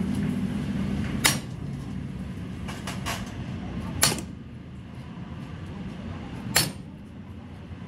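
Sledgehammer striking a steel sleeve set on the end of a truck torque-arm rod to drive its bushing: three heavy metal-on-metal blows about two and a half seconds apart, each with a short ring.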